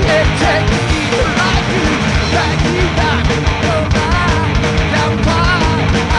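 Punk rock song played by a full band: loud, steady drums and distorted guitars, with a melody line winding over the top.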